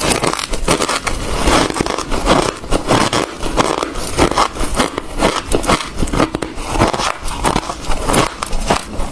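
A person chewing hard ice close to the microphone: a steady run of loud, rapid crunches, several a second.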